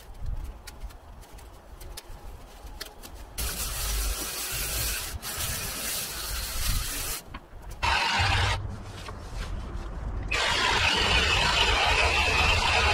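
Handheld power hedge trimmer running in bursts while cutting overgrown garden plants. It comes on about three seconds in for several seconds, gives a short burst near eight seconds, and runs steadily again from about ten seconds on.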